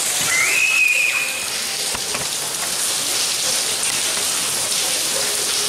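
Heavy rain falling steadily, an even hiss of rain on a tiled courtyard. A brief high-pitched tone sounds about half a second in.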